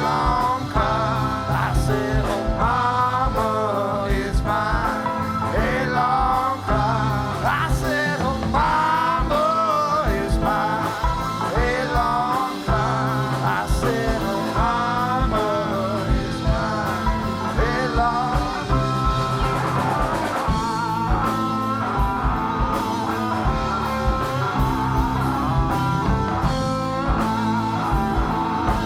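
A band playing a bluesy rock song, with guitar and a steady beat, and a lead line sliding up and down in pitch over it.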